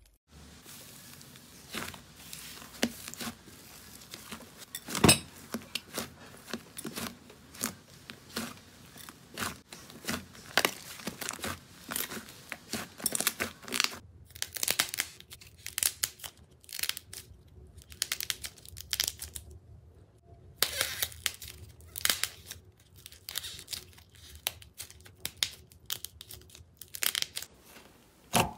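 Hands squeezing, stretching and pressing slime, making irregular sticky crackles and pops, with a short pause about two-thirds of the way through.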